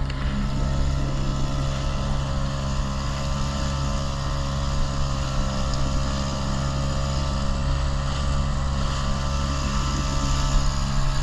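Motorboat engine running steadily under way, holding a constant pitch with no change in speed.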